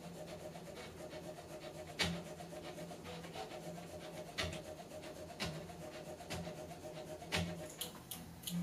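Stepper motors of a HyperCube CoreXY 3D printer driving the print head around the bed: a steady buzzing hum, broken by four sharp knocks spread through the stretch and a few lighter ticks near the end.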